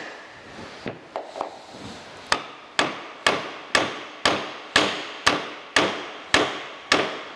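Small hammer striking the end of a steel expanding mandrel: a few light taps, then steady blows about two a second, each with a short ring. The blows drive the mandrel through its split sleeve so that it expands and grips a bronze bushing by friction.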